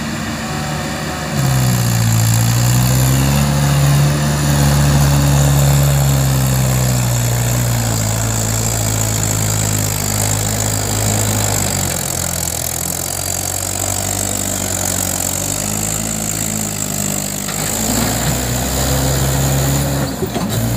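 Mahindra 575 DI tractor's four-cylinder diesel engine pulling a loaded sand trailer, revving up about a second and a half in and then running hard under load, easing off in the middle and picking up again near the end.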